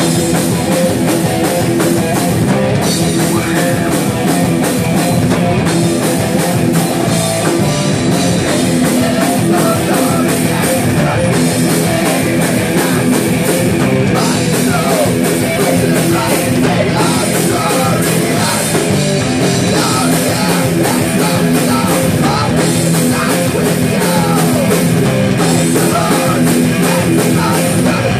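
Live metal band playing loud and without a break: electric guitar, electric bass and drum kit.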